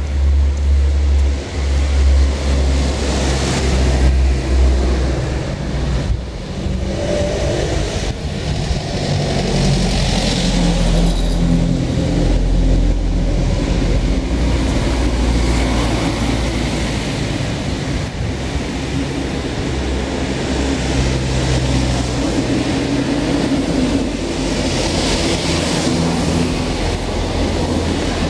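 Honda VT125 Shadow's small V-twin engine idling steadily through its aftermarket 'Shotgun' exhaust.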